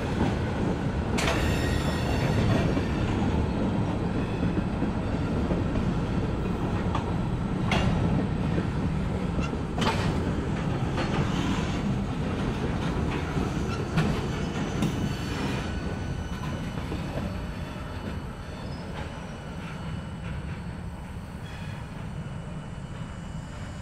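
Freight cars (tank cars, covered hoppers and a boxcar) rolling slowly past on steel rails: a steady rumble of wheels with a few sharp clanks and a faint wheel squeal. It grows quieter over the last several seconds as the end of the train pulls away.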